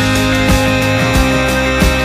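A pop-rock song playing: sustained instruments over a steady drum beat, with no singing in this stretch.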